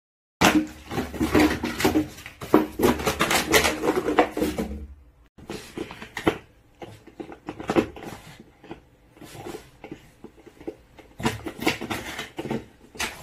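Thin plastic PET bottle crinkling and crackling as a French bulldog chews and crushes it in its jaws. Loudest for the first few seconds, quieter in the middle, and busy again near the end.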